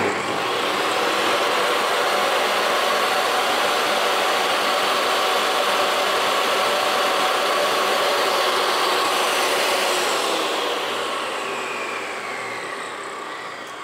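DeWalt portable table saw running free with no cut, a loud steady whine of motor and blade that comes up to speed within the first second. About ten seconds in it is switched off and spins down, its pitch falling as it slows.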